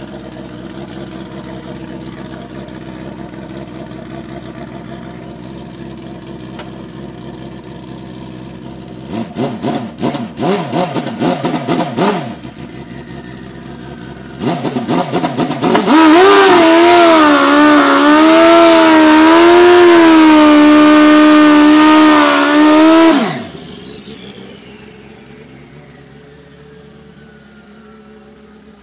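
Drag-racing motorcycle with a long swingarm idling, then revved in a series of sharp blips. It is then held at high revs, loud and steady with a slight waver, for about seven seconds, typical of a burnout. The engine note cuts off suddenly and drops back to idle, with a faint falling whine after it.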